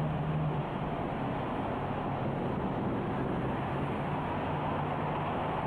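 Steady city background noise with a faint low hum. No separate firework bangs stand out.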